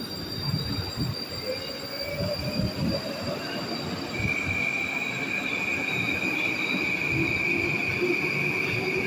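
Moscow Metro electric train pulling out of the station, growing louder as it gathers speed. A rising whine from the drive and a rumble of wheels on rail; a high steady whine sets in about four seconds in.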